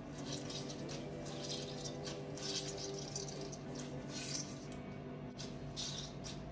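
Water squeezed by hand out of thawed frozen konnyaku strips, spattering and trickling through a plastic colander into a stainless steel sink in a series of short splashy bursts, one with each squeeze.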